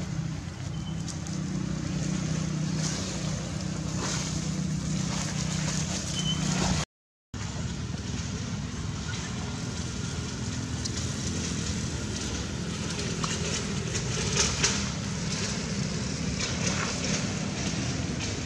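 Steady outdoor background noise with a low hum, like wind on the microphone and a distant engine, broken by a brief gap of silence about seven seconds in.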